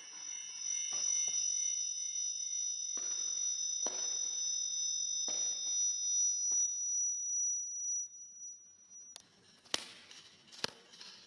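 Audio feedback between a microphone and a computer and camcorder: a steady high-pitched ringing of several tones at once. A few soft knocks and rustles cut across it, and it stops suddenly about nine seconds in, leaving scattered clicks.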